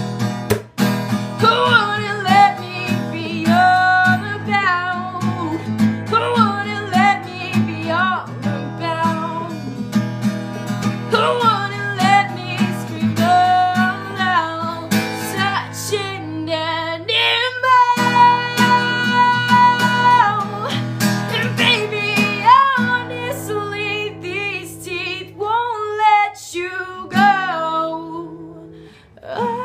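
A woman singing to her own strummed acoustic guitar. About eighteen seconds in she holds one long note for about two seconds.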